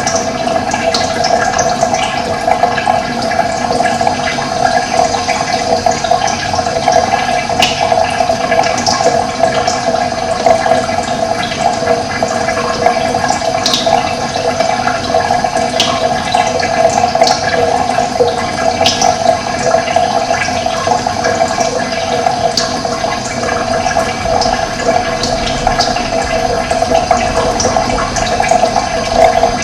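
Steady rush of running water, with brief high bird chirps scattered throughout.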